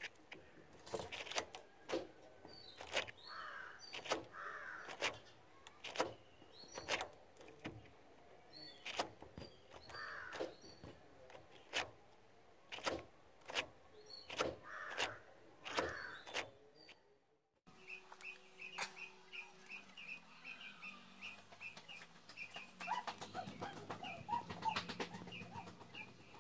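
Faint bird calls: crows cawing among short sharp chirps. About two-thirds through, after a brief break, a steady run of short high chirps, about three a second.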